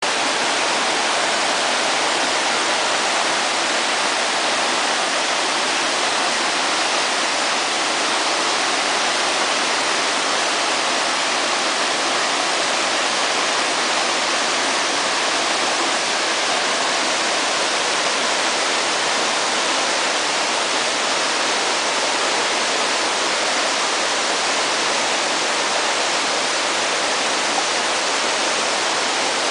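Waterfall with its water falling and splashing in a steady, unbroken rush, with little deep rumble.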